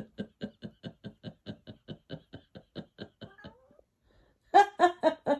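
A person laughing: a long even run of "ha-ha" pulses, about five a second, that fades away over the first three seconds or so, then a short louder outburst near the end.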